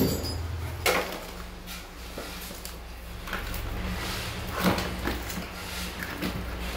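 A cardboard product box being handled and its flap opened: a few knocks and scrapes, the loudest about a second in and again near five seconds, over a low steady hum.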